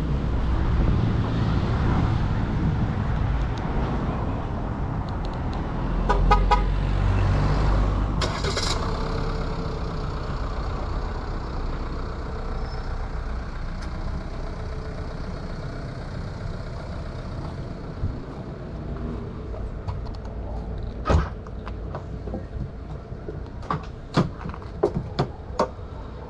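Fiat Toro Volcano's 2.0-litre four-cylinder turbodiesel running, loudest at first and gradually easing off. A brief pulsing horn-like tone sounds about six seconds in, and several sharp clicks come in the last few seconds.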